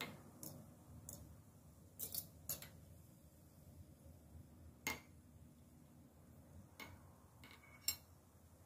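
A metal fork clinking against the glass of a jar of pickled cucumbers as it digs in and lifts a cucumber out. Faint, sharp, irregular clinks, the loudest one just before the end.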